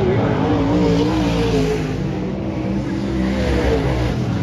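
Several dirt-track race car engines running hard at once. Their pitches rise and fall separately as the cars accelerate and lift around the oval.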